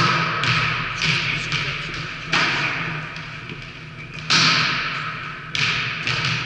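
Volleyballs being struck and bouncing on a wooden gym floor: a string of sharp, irregular smacks and thuds, each ringing on in the echo of the large hall.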